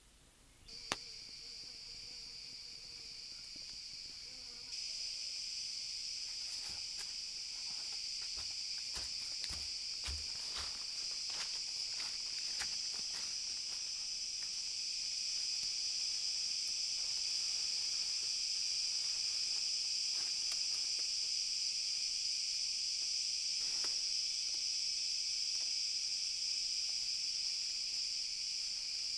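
Steady, dense chorus of jungle insects, a high shrill drone that starts about a second in and gets louder about five seconds in. A sharp knock comes just as it begins, and scattered clicks and snaps follow in the middle as someone moves through the undergrowth.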